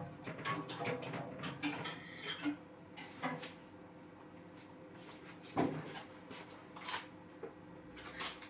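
Scattered clicks, taps and rustling of hard plastic action-figure parts being handled, with a sharper knock about five and a half seconds in.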